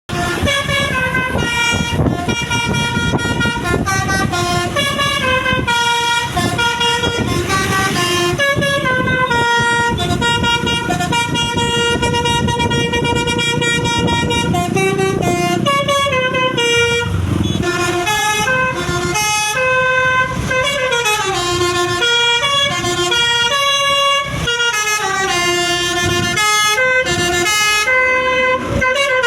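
Indonesian bus's telolet (basuri) multi-tone air horn playing a long run of notes that step and glide up and down in pitch, siren-like, over the bus engine running.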